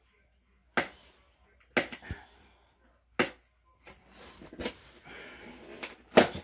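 Cardboard shipping box being handled and opened by hand: five sharp, irregularly spaced knocks, the loudest near the end, with soft cardboard rustling in the second half.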